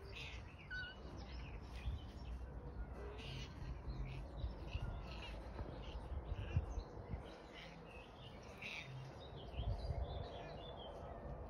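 Small birds chirping repeatedly, short calls scattered throughout, over a low rumble.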